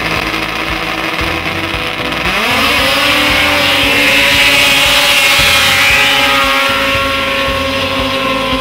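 Snowmobile engines revving up hard about two seconds in as the sleds launch onto the water. They then hold a high, steady pitch while skimming across it, with the rushing hiss of spray.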